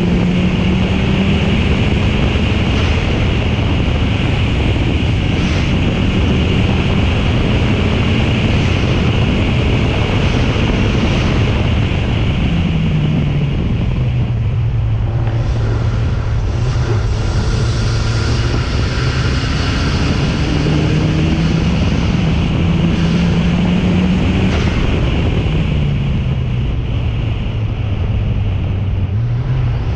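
Race car engine running hard up a hill climb course, its pitch climbing slowly and then dropping sharply at gear changes, about twice. Heavy wind noise rushes over the microphone throughout.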